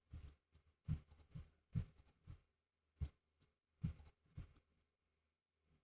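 Faint, irregular clicks and taps of a computer mouse and keyboard, about ten in all, as edges are selected and shortcuts pressed in 3D modelling software.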